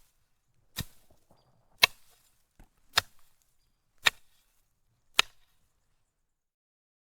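Five sharp strikes, evenly spaced about a second apart.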